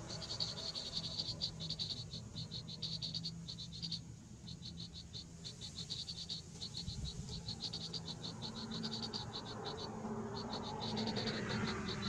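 Rapid trains of high-pitched pulsed chirps from calling frogs or insects in the field, each train about a second long with short breaks between, over a steady low hum.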